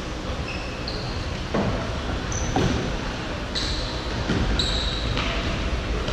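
Futsal players' indoor shoes squeaking on a wooden court in short high chirps, with a few thuds of the ball being kicked or bouncing, in a large sports hall.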